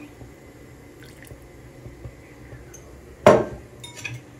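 Vegetable oil poured from a glass jar into a large pot of lecho, a soft trickle of liquid. About three seconds in comes a single sharp knock, the loudest sound, followed by a few light clicks.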